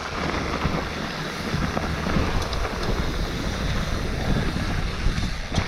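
Wind buffeting an action camera's microphone over the rumble of a YT Tues downhill mountain bike's tyres on a dirt trail, with scattered clicks and rattles from the bike.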